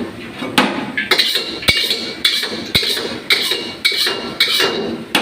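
Repeated sharp knocks of kitchen utensils, about two a second, each with a brief metallic ring, as in chopping or striking metal cookware.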